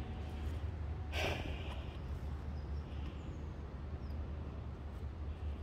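Steady low rumble of distant city traffic. About a second in, one short breath is heard close to the microphone.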